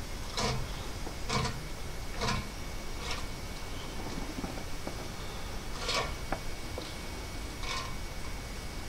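Chimney inspection camera cable sliding up through a towel as it is pulled hand over hand: a series of short swishes, about one a second at first, then a pause and two more near the end.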